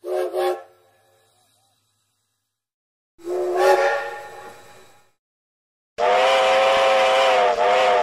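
Steam locomotive whistle blowing: two quick toots, then a single blast about three seconds in that fades away, then a long steady blast starting about six seconds in with a brief dip partway through.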